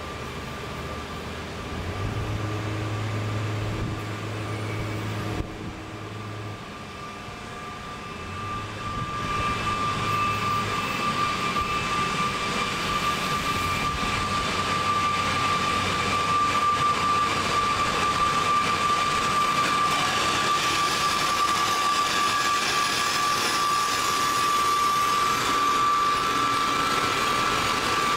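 Intercity train hauled by an electric locomotive approaching and running along the platform, its wheel-on-rail rumble growing louder from about eight seconds in as the coaches pass. A steady high-pitched whine holds throughout, and a low hum is heard for a few seconds from about two seconds in.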